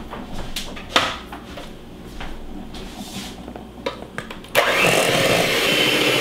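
A few sharp clicks and knocks, then about four and a half seconds in an electric hand mixer switches on and runs steadily, its beaters whirring through softened butter in a stainless steel bowl.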